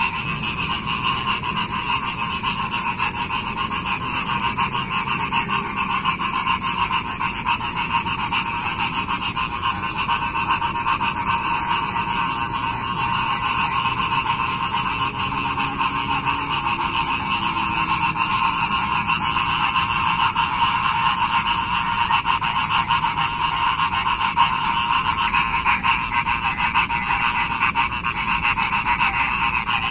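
A dense chorus of many frogs calling at once, a continuous pulsing drone that holds steady throughout, with a thin steady high-pitched band above it.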